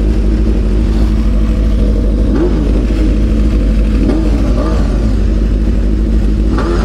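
Honda CBX550F's inline-four engine idling steadily, with a few short squeaky rising-and-falling glides over it: the abnormal noise the owner puts down to the tachometer.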